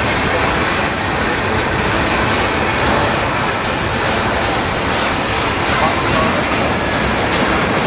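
A freight train's boxcars rolling past at close range: a steady, loud rumble and clatter of steel wheels on the rails.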